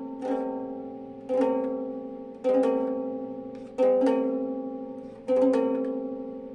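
Ukulele strings sounded by a turning ceiling fan on low speed: the same chord is strummed about every second and a half, often as a quick double strum, and each one rings and fades before the next.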